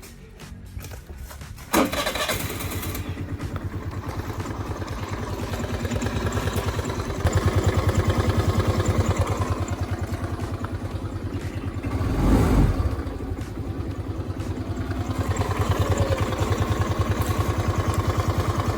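Suzuki Access 125 scooter's single-cylinder engine started about two seconds in, then idling with a steady pulsing beat and a brief rise in engine speed about twelve seconds in. It runs with a small knock that comes from the worn variator rollers (movable drive).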